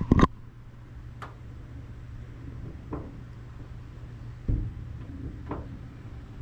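Scattered light clicks and knocks from handling a small aircraft's opened-up wing and its loose control parts, over a steady low hum. The loudest knock comes right at the start, and there is a duller thud a little past the middle.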